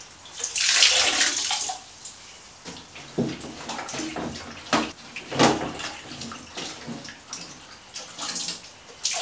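Water from a soaked dishcloth splashing into a toilet bowl as it is wrung out, about a second in and lasting about a second and a half. Then quieter sloshing and a few sharp knocks as the cloth is worked in the last water at the bottom of the cistern.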